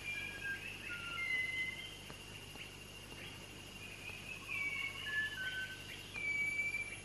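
A rainforest songbird singing a series of clear, musical whistled notes, each held briefly at a different pitch. The notes come over a steady high-pitched background hum.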